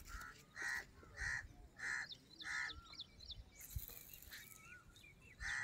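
A bird giving a series of short, harsh calls, about one every 0.6 seconds, five in a row, then a pause and one more near the end. Smaller birds chirp faintly in between.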